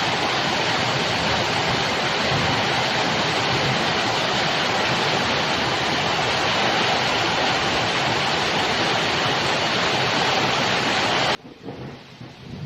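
Heavy tropical downpour: a loud, steady, dense hiss of pouring rain. It cuts off abruptly about a second before the end, leaving much quieter rain.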